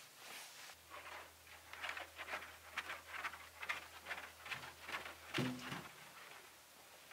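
Microfiber towel wiping over the painted aluminium skin of a light aircraft, a faint rubbing in quick strokes of about two or three a second. Near the end there is one short, louder pitched squeak.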